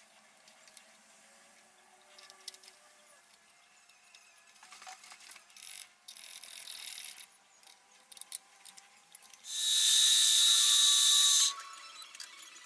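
Light clicks and taps of a hex key and step clamps as a workpiece is clamped on a milling table. About three-quarters of the way in, an end mill cuts metal on a Deckel FP1 milling machine: a loud, steady high-pitched whine with hiss for about two seconds, dropping away shortly before the end.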